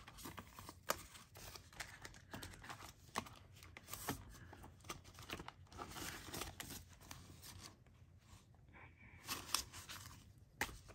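Paper banknotes being flicked through and counted by hand: a string of quick, soft rustles and snaps of paper, with a quieter spell about eight seconds in before the flicking picks up again.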